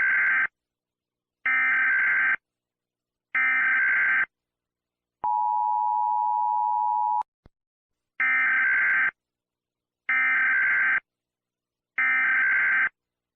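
Emergency Alert System tones: three one-second bursts of screeching digital data, then the two-tone attention signal held for about two seconds, then three more data bursts, with short silent gaps between them.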